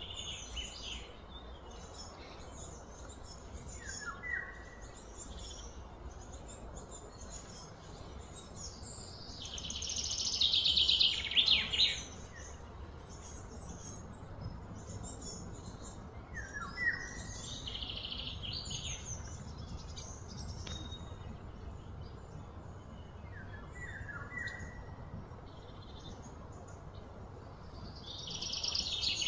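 Birds chirping and calling. A loud, rapid trilling bout comes about ten seconds in and another near the end, with short falling notes now and then.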